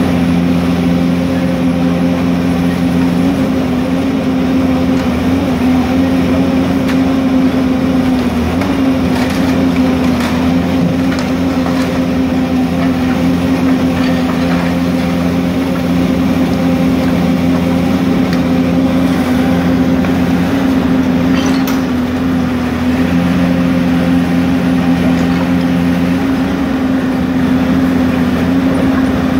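Diesel engine of a long-reach demolition excavator running steadily close by, its tone shifting a little as the hydraulics work the grab. A few faint knocks come through now and then.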